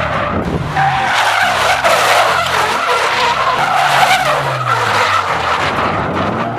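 Car drifting: the engine revs up and down while the tyres squeal and skid.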